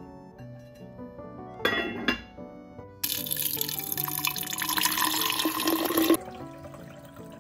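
Water poured into a glass pitcher over pieces of kombu, filling it for about three seconds and then stopping abruptly; this is the kelp being set to soak for cold-brewed dashi. A brief clatter comes about two seconds in.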